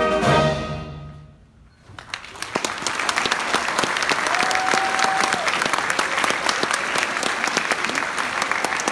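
A school concert band's final brass chord rings out and dies away into a short hush, then the audience breaks into steady applause. About halfway through the applause, one brief held note rises above the clapping.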